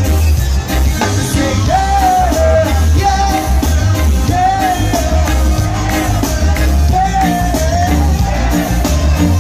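A live reggae band playing through a PA system, with a heavy, steady bass line and a lead singer's melody over it.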